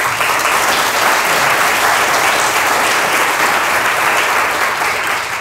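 Audience applauding, the clapping starting all at once and tapering off near the end.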